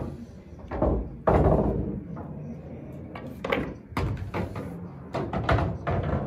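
A pool shot: the cue tip knocks the cue ball, and the yellow object ball drops into the far corner pocket with a heavy thunk and a rumble as it rolls away inside the table, about a second in. Several sharper knocks follow as the cue ball comes off the cushion and rolls back up the table.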